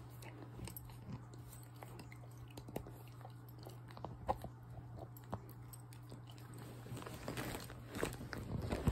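A Boxer–Labrador mix puppy chewing and mouthing close to the microphone: faint, irregular wet clicks and crunches that grow busier near the end, over a low steady hum.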